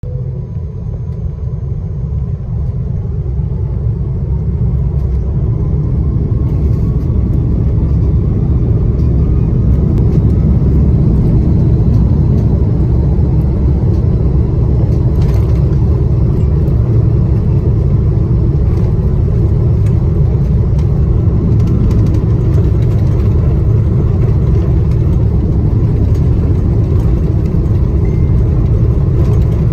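Airbus A330-300 jet engines spooling up for takeoff, heard inside the cabin: a deep rumble that builds over the first ten seconds with a faint rising whine, then holds steady and loud as the airliner accelerates down the runway.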